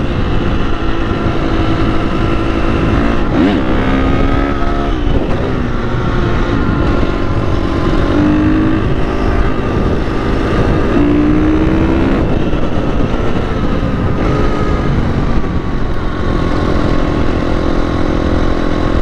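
Dirt bike engine running under way, its pitch climbing and dropping as the rider works the throttle and shifts, over a heavy low rush of wind on the microphone.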